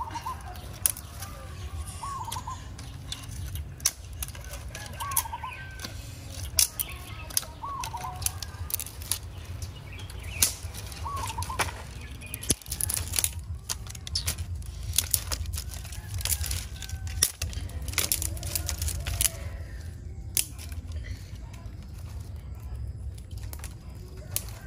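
Dry twigs and leaf litter crackling and snapping as sticks are handled and stepped on, with sharp clicks coming thickest in the middle. A bird gives a short call every couple of seconds in the first half.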